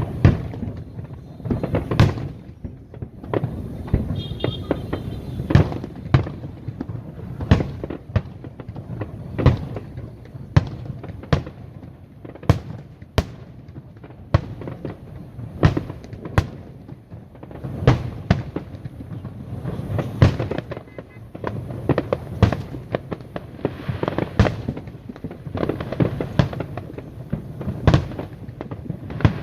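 Aerial fireworks display: shells bursting one after another in an irregular stream of sharp bangs, sometimes several in quick succession, over a constant rumble of more distant bursts.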